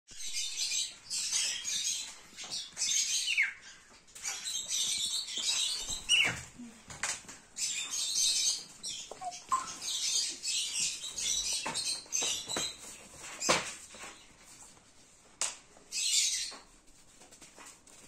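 White cockatiel being handled and stroked in a child's hands: repeated short bursts of rustling from its feathers and the hands, with a few brief falling calls; quieter near the end.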